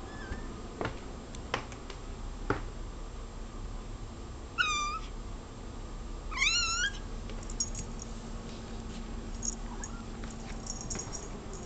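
Tortoiseshell-and-white cat giving two high, squeaky meows, about five and six and a half seconds in, the second rising then falling: meowing at a bug she sees on the wall. Three sharp clicks come before the meows.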